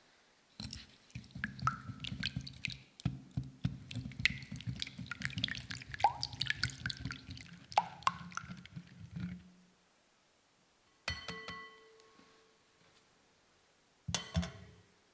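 Eggs being beaten with a silicone whisk in a glass bowl: rapid clicking and wet sloshing that stops after about nine seconds. Two ringing clinks of glass follow, about three seconds apart.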